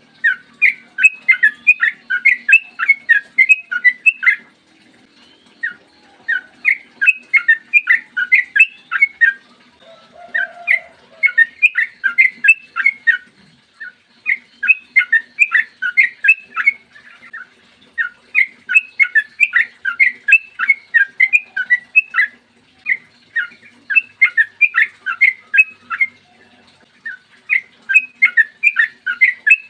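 Yellow-vented bulbul (trucukan) singing long, rapid runs of bubbling notes in phrases a few seconds long, with short pauses between them.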